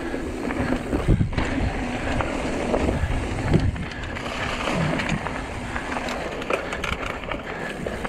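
Hardtail mountain bike rolling fast down a dirt trail: steady tyre noise on the ground, broken by a few sharp knocks and rattles as it goes over bumps, about a second in and again about three and a half seconds in.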